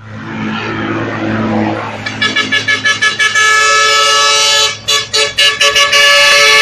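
A rumble swells for the first two seconds. Then a tractor-trailer's musical multi-tone air horn starts up: a run of quick toots, a held chord, more quick toots, then a long held chord.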